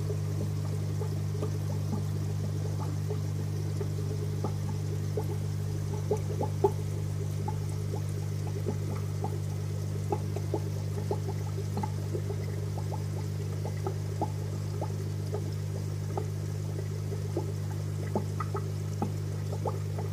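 Air-driven aquarium sponge filter bubbling: irregular small pops and gurgles of rising air over a steady low hum.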